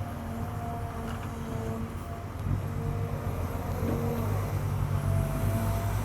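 Cat 320 GC excavator's diesel engine running steadily while loading a truck, with a low hum that grows louder about two and a half seconds in as the engine takes on more load.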